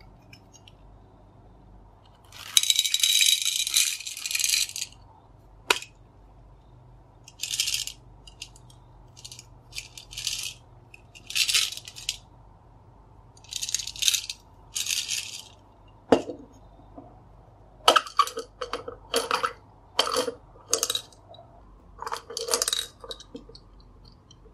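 Small candy balls rattling inside a plastic toy gumball candy machine as it is handled and turned over, in about six short bursts. Later, a run of sharp plastic clicks and knocks as the toy's parts are fitted and it is set down on the table.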